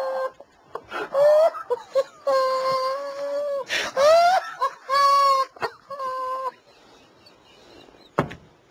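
A man's stifled laughter behind a hand over his mouth: several long, high-pitched squeals and wheezes, some gliding upward, that stop about two-thirds of the way through.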